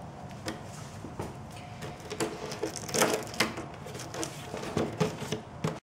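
Irregular clicks and knocks of something being handled, loudest about three seconds in; the sound cuts off abruptly near the end.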